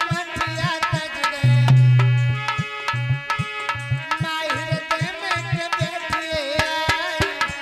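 Instrumental passage of Aalha folk music: a hand drum plays a fast rhythm with deep bass strokes under held melodic tones.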